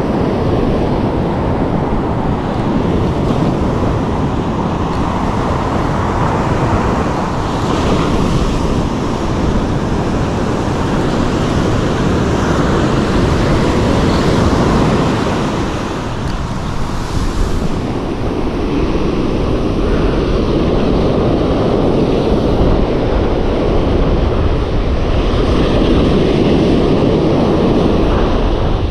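Surf breaking and washing up a sandy beach, with wind rushing over the microphone: a steady rushing noise that swells and eases with the waves.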